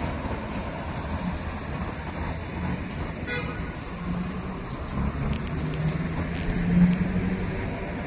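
City public bus under way, heard from inside: steady engine hum and road rumble, with a brief high-pitched tone about three seconds in and a few light clicks and rattles later on.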